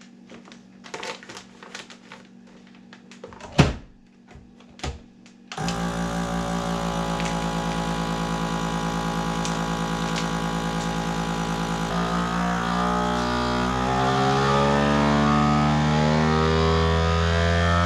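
Plastic vacuum-sealer bag crinkling with a few clicks as it is handled. About five and a half seconds in, a FoodSaver vacuum sealer's pump starts with a sudden, steady mechanical hum, drawing the air out of the bag around a whole chicken. Its tone shifts around twelve seconds in and grows louder near the end.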